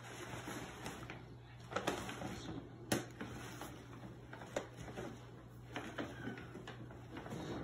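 Brown paper shopping bag crinkling and crackling as a cat shifts around stuck inside it, in irregular sharp rustles, the loudest about three seconds in.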